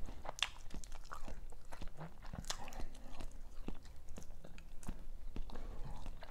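Close-miked eating sounds: chewing and biting on seafood, with many short, irregular wet clicks and crackles.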